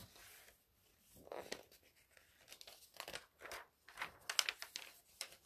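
A hardcover picture book being opened and its pages turned: faint paper rustling and crinkling, with a cluster of sharper crackles about four seconds in.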